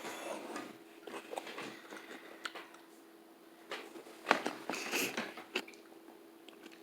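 Raw cucumber being bitten and chewed, with irregular wet crunches that come thickest and loudest a little past the middle.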